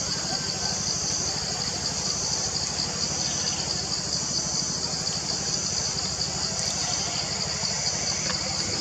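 A steady, high, slightly pulsing insect chorus fills the background, over a low steady hum like an idling motor.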